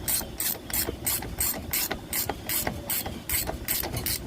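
Socket ratchet wrench clicking in quick back-strokes, about three a second, as it runs a 14 mm wheel bolt down on a lawn mower wheel.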